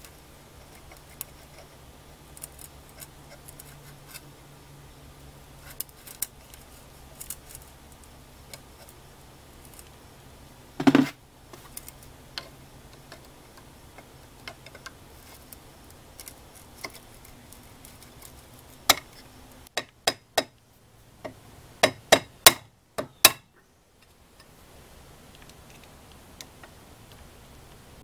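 A flat metal tool prying and scraping at the glued-on aluminum heat sink of an automotive ignition module, with scattered light clicks and ticks of metal on metal and breaking bits. There is one louder knock about eleven seconds in, and a quick run of sharp clicks near the end.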